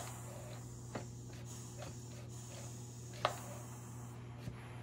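Shark S1000WM steam mop running, rigged with a substitute water tank: a steady low hum with a faint hiss that stops about four seconds in, and a few sharp clicks.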